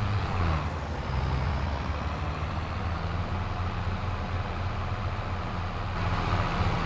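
Combine harvester running steadily while harvesting corn: a constant low engine drone with machinery noise over it.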